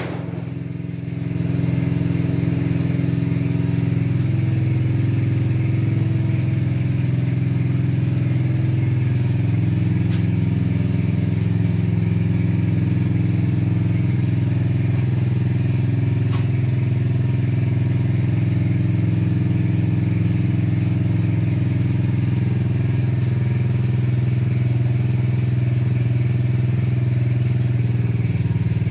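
ATV engine running steadily at an even speed, getting louder about a second and a half in and then holding constant.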